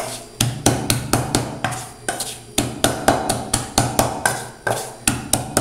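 Wooden pestle pounding garlic, onion, cilantro, chili and salt in a metal pot, a steady rhythm of knocks at about four a second, mashing the seasoning into a paste.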